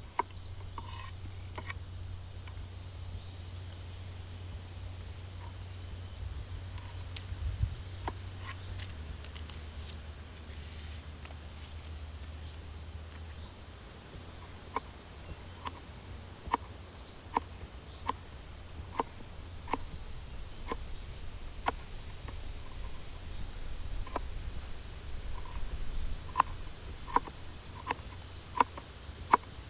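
Outdoor ambience with short high chirps repeating throughout, over a low steady rumble. Irregular sharp taps and clicks, some with a brief ring, grow more frequent in the second half.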